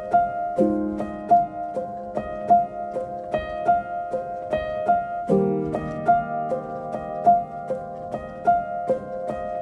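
Instrumental outro music: a light melody of short notes about two or three a second over held chords that change about half a second in and again just after five seconds.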